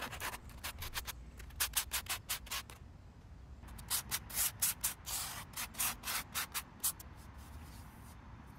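Sandpaper on a hand sanding block scrubbing the steel top of a Blackstone griddle in quick back-and-forth strokes, in two runs with a short pause between, easing off near the end. It is the 80-grit stage of sanding away the factory pre-seasoning toward smooth bare metal.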